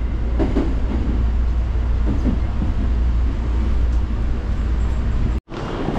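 Cabin of a JR Tokaido Line local train running as it nears a station: a steady low rumble. Just over five seconds in it cuts out abruptly for a moment, then similar running noise resumes.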